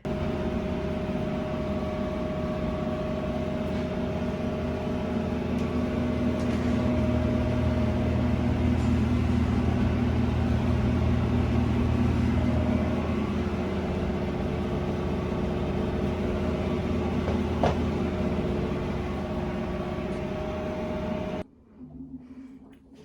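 Washing machine running its cycle: a steady motor hum with a low drum rumble that grows louder in the middle, a single click about 18 seconds in, then it cuts off abruptly about 21 seconds in.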